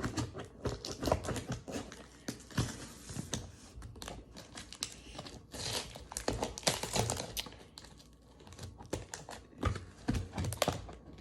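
Packing tape being picked at and pulled off a taped-up cardboard box: irregular crinkling and tearing with small scratches and taps.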